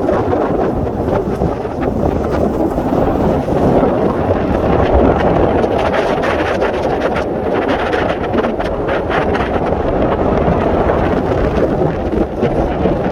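Wind buffeting the microphone: a loud, steady rushing with scattered gusty knocks.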